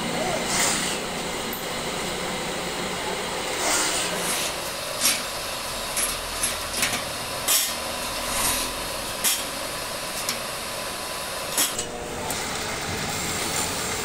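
Hand-tool work on metal: scattered short knocks and scrapes, about ten of them at irregular intervals, over a steady background hum.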